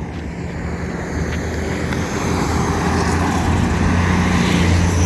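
Motor vehicle engine and road noise, a steady low hum that grows louder toward the end and peaks just before it eases off.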